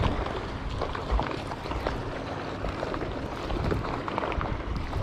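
Wind buffeting the microphone and water moving against a boat on open water, with scattered light clicks and knocks.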